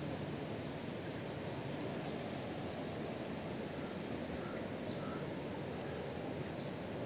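A steady high-pitched buzz of insects in a mangrove, running evenly over a continuous low rushing noise.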